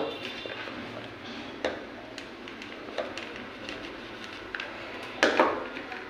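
A few faint, scattered taps and clicks as a small push button and its thin wires are pressed and held against a cardboard boat hull. A short voice sound comes near the end.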